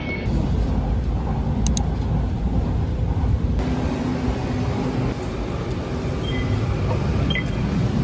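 Steady low rumble of a vehicle in motion.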